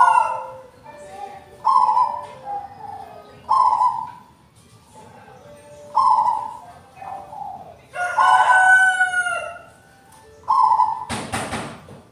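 Zebra dove (perkutut) cooing: short, low notes repeated every second or two. A longer crowing call about eight seconds in, likely a rooster, and a brief rushing noise near the end.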